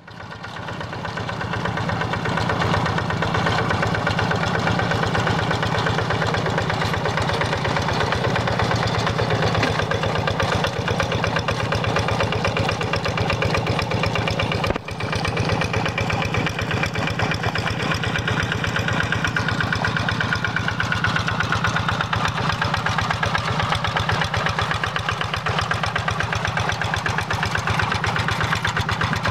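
Single-cylinder diesel engine of a Quick G1000 Boxer two-wheel hand tractor running steadily as the tractor works a flooded rice paddy, a rapid, even chugging. It fades in at the start and drops out for an instant about halfway through.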